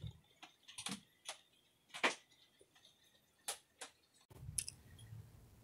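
A scattering of sharp, irregular clicks and taps, about ten in four seconds, quiet between them. At about four seconds in the sound cuts to a faint low rumble.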